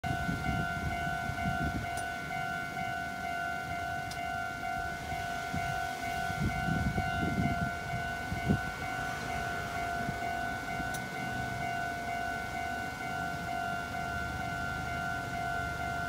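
Japanese railway level crossing's electronic warning bell ringing steadily with the barriers down, a crossing signalling that a train is approaching. A single thump about eight and a half seconds in.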